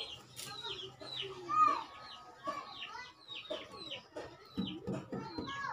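Chickens clucking, with a steady stream of short, high, falling peeps and one louder call about one and a half seconds in.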